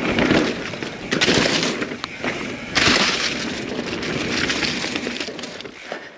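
Norco Sight full-suspension mountain bike riding down a rough trail: tyres rolling over dirt and rock, the bike rattling, with two louder rough hits about a second in and just under three seconds in.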